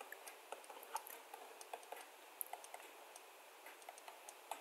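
Stylus writing on a tablet: faint, irregular light clicks, about three or four a second.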